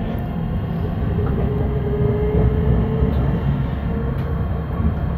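Passenger train running slowly along a station platform, heard from inside the carriage: a steady low rumble with a short, steady whine about two seconds in.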